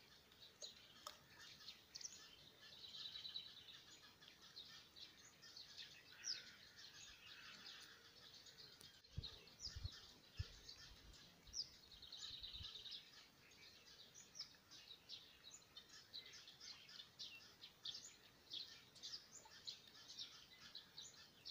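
Faint birdsong: many small birds chirping in quick short notes, with a couple of brief rapid trills. A few soft low thumps come about halfway through.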